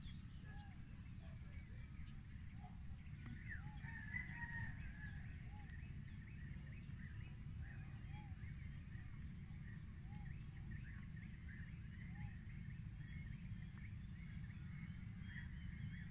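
Several birds calling and chirping: many short, repeated arched calls throughout, over a steady low rumble.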